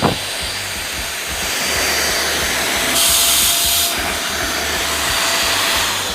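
Beldray 2-in-1 stick vacuum cleaner running: a steady rushing hiss of its motor and airflow with a faint steady whine, brighter for about a second in the middle, starting to die away near the end.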